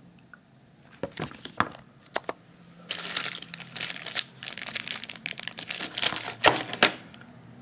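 Thin clear plastic bag crinkling as a small bagged USB cable is handled, in dense irregular crackles. A few sharp handling clicks come about a second in.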